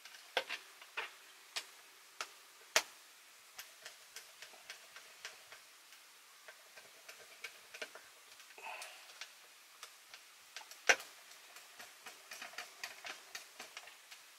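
Irregular small clicks and taps of tiny screws and a screwdriver being handled against a cassette recorder's metal and plastic chassis as the screws are put back, with two sharper clicks about 3 s and 11 s in. A brief plastic-bag rustle comes a little past the middle.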